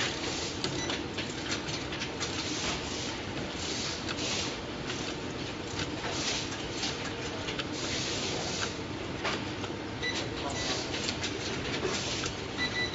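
Automatic rotary soldering machine (WPM 805) running, a steady mechanical noise with many irregular clicks and clacks from its moving parts. Short high beeps sound twice, about ten seconds in and at the end.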